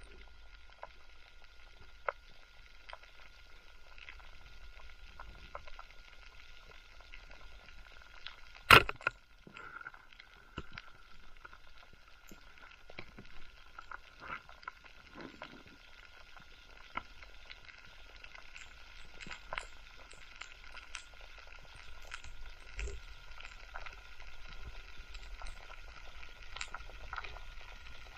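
Underwater crackling of snapping shrimp on a coral reef, a dense steady sizzle of tiny clicks heard through a submerged camera. About nine seconds in there is one much louder sharp click.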